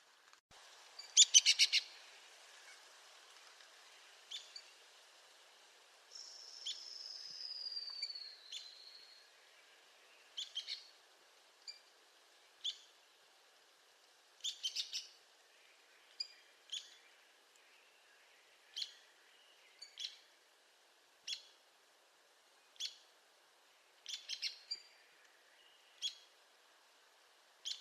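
Arizona woodpecker giving sharp, short calls every second or two, some of them in quick clusters of several notes, the loudest cluster about a second in. About six seconds in, a longer call slides down in pitch for about three seconds.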